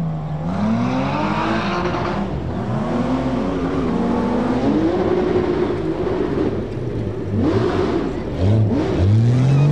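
Four-wheel-drive truck engine revving hard and easing off again and again as it works through the course, its pitch rising and falling several times, with a steep climb near the end.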